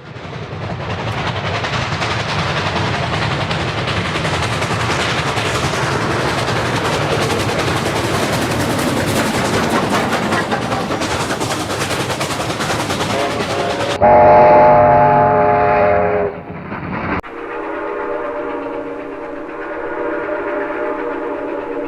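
Train running along the track with a steady rushing rail noise. About two-thirds of the way in it gives way to a loud, chord-like blast of the train's warning signal lasting about two seconds. A softer, longer blast follows near the end.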